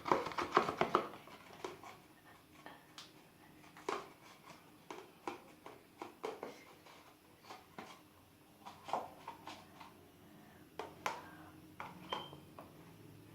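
A utensil stirring watered-down white PVA glue in a container, clicking and knocking against its sides. The strokes come in a quick run for about the first second, then as scattered single taps.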